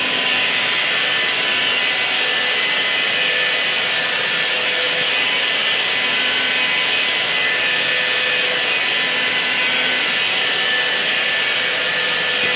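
A hand-held hair dryer running steadily, a loud, even rush of blown air with a faint steady whine.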